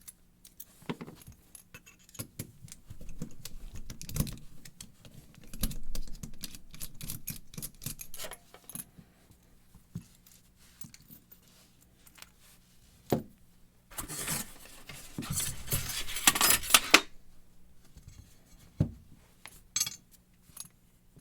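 Small metal clicks and rattles from handling an American 1100 padlock and lock-picking tools while the lock is locked back up, with a denser burst of jingling metal about fourteen to seventeen seconds in.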